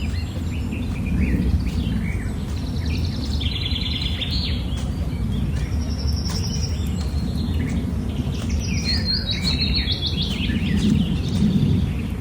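Birds singing, a series of quick trilled and chirping phrases over a steady low rumble.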